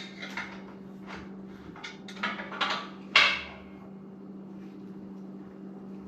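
Metal clinks and knocks of hand tools at work, about six separate strikes over the first three seconds, the loudest about three seconds in, then only a steady low hum.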